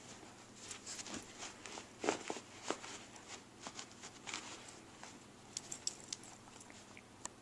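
A puggle puppy playing with a plush toy: faint, scattered pattering and scratching of paws and claws, with a few sharp clicks just after the middle.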